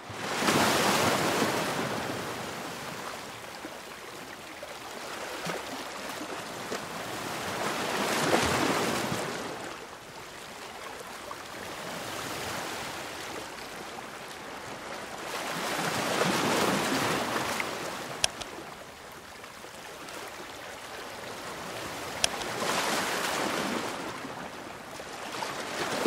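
Ocean waves, fading in at the start, then surging and ebbing in slow swells about every eight seconds. Two brief sharp clicks come in the second half.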